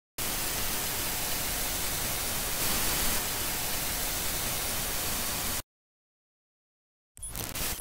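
Television static: an even hiss of white noise that cuts off suddenly about five and a half seconds in. After a pause comes a brief burst of noise near the end.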